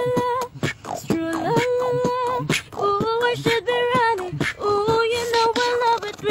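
Beatboxing: mouth-made kick and snare clicks keep a beat under a woman singing a wordless melody in long held notes that step up and down in pitch.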